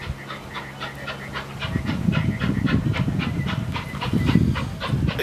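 Norfolk & Western 611, a 4-8-4 steam locomotive, working slowly toward the listener, its exhaust chuffing about five times a second over a low rumble.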